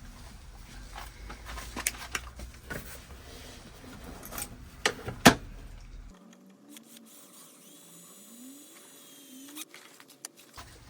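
Sharp plastic clicks and handling knocks from work on the interior trim, then about four seconds of a small electric drill running, with its pitch rising as it spins up, boring a 4 mm hole in the plastic side trim panel.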